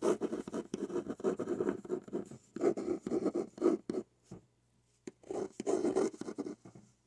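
Pen scratching on paper while writing, in rapid strokes, in several spells with a short pause about two-thirds of the way through.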